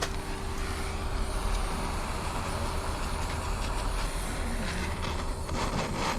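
Butane soldering iron hissing steadily as it heats the connector joint, over a low rumble; the hiss eases about five and a half seconds in.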